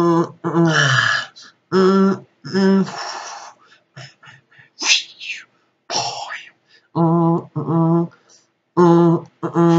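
A man making wordless vocal sound effects with his mouth: short held notes at one steady pitch, breathy hisses, and a couple of sliding whistle-like sweeps that rise and fall about halfway through.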